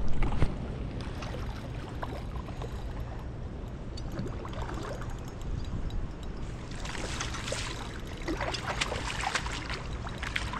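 Steady low rumble of river water and wind across the microphone. A louder splash comes right at the start, and a cluster of sharp clicks and splashes comes about seven to ten seconds in.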